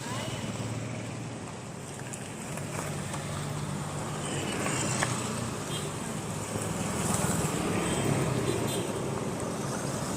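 Roadside traffic noise: motor vehicles running and passing on the road, a steady rumble that swells a little around the middle and near the end.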